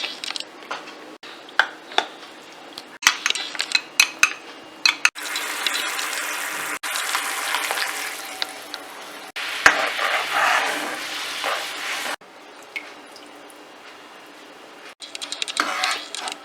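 Kitchen cooking sounds: a utensil clinks against a pot or pan several times, then a steady hiss of cooking runs for about seven seconds, followed by more clinks near the end.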